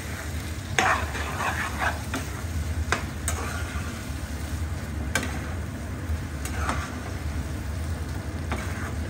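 A spoon stirring and scraping fresh-turmeric (haldi) sabzi frying in ghee in a kadhai, over a light sizzle. The spoon knocks sharply against the pan every second or two.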